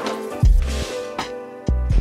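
Background music: sustained chords over a bass drum that hits about half a second in and again near the end.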